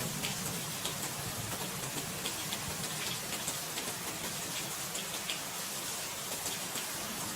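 Steady rain falling: an even hiss with many small, quick drop ticks.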